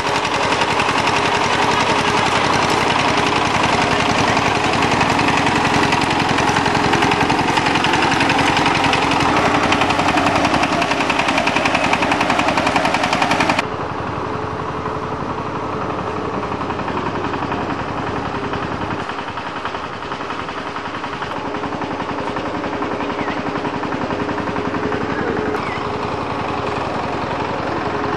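A small engine running steadily with a fast, even chugging. About halfway through, the sound suddenly drops in level and turns duller, then runs on the same way.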